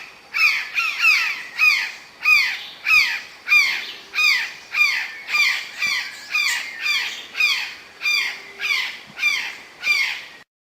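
Magpie calling: a steady series of about eighteen calls, each sliding down in pitch, roughly one and a half a second, stopping abruptly near the end.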